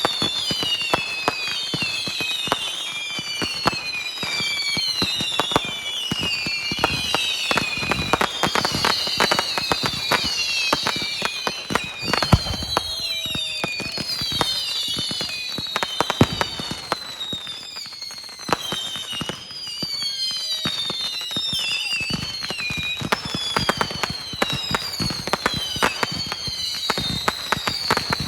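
Fireworks going off in a dense run of many whistles, each falling in pitch, over constant crackling and popping.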